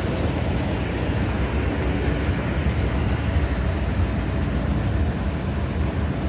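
Steady low rumble of outdoor city background noise, even throughout with no distinct events.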